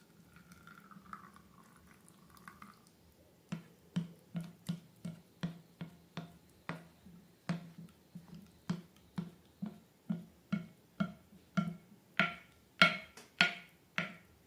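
Slime being squished by hand, making a regular run of sticky clicks about two a second that starts about three and a half seconds in and grows louder near the end.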